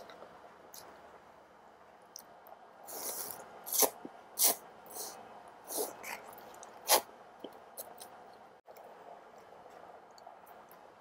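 Noodles being slurped and eaten close to the microphone: a run of short, airy slurps between about three and seven seconds in, with quieter chewing and mouth clicks around them.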